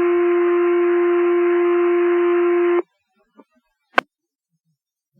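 Fire department two-tone paging alert heard over a radio scanner: the second, longer tone of the sequence holds steady, then cuts off sharply about three seconds in. A single sharp radio click follows about a second later.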